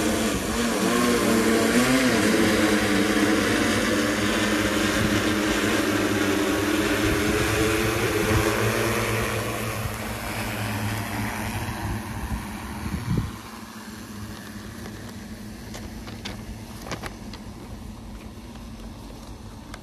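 Multirotor agricultural spray drone's propellers humming as it flies off along its planned route. Several rotor tones waver in pitch in the first two seconds, then hold steady, growing fainter from about ten seconds in as the drone moves away, with a brief knock about thirteen seconds in.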